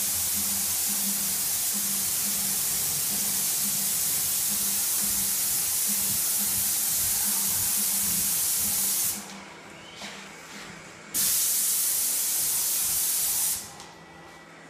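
Airless paint spray gun of a Graco Ultra Max II 695 sprayer hissing steadily as it sprays paint onto drywall. The trigger is released about nine seconds in, the spray starts again two seconds later, and it stops again near the end. A faint low pulse runs underneath about twice a second.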